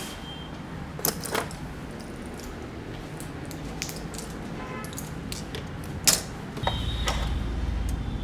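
A few sharp clicks: two about a second in and a louder one about six seconds in. A low rumble of passing road traffic swells up near the end.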